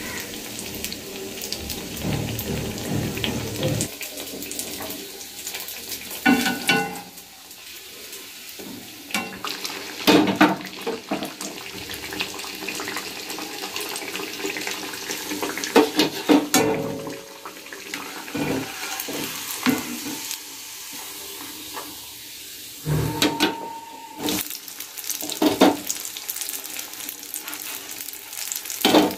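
Jaggery-batter fritters (gur pitha) sizzling steadily as they deep-fry in hot oil in a kadai. Several sharp metal clinks and knocks come from a slotted spoon against the pan.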